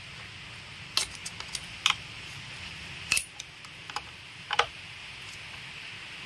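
Scattered light metallic clicks and clinks of a plug spanner and screwdriver working the bar nuts and chain-tensioner screw of a petrol chainsaw, as the chain is tightened on the bar.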